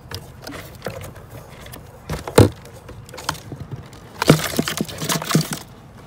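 Cardboard box trap being handled: irregular knocks and scraping on cardboard, with one loud knock about two and a half seconds in and a burst of scuffling and knocking near the end.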